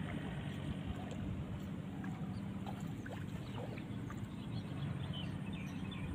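A motor's steady low hum, with faint short high chirps in the second half.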